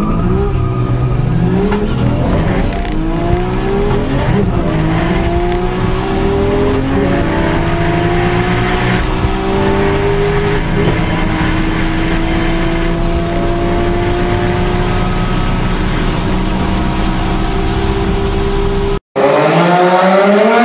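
Turbocharged straight-six sports car engine accelerating hard through the gears, heard from inside the car: the pitch climbs, drops back at each upshift and climbs again, the pulls growing longer in the higher gears. Near the end the sound cuts out for a moment and a different engine revs up.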